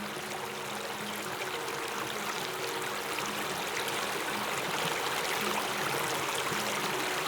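Shallow creek flowing over bedrock, a steady rush of water that grows slightly louder toward the end.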